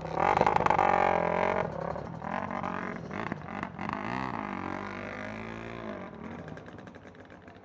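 Dirt bike engines revving hard as the riders pull away, loudest in the first second or two, then rising and falling in pitch as they ride off through a creek, fading with distance.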